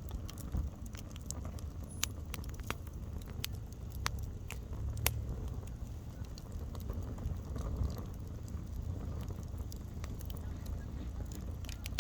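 Wood campfire crackling, with scattered sharp pops, a few of them louder, over a low steady rumble.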